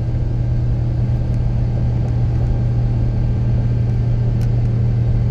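Steady low drone of a truck's engine and tyre noise heard inside the cab while cruising at highway speed.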